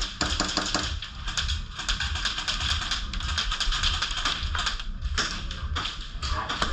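Airsoft guns firing: a dense run of rapid clicks and snaps with no real pause.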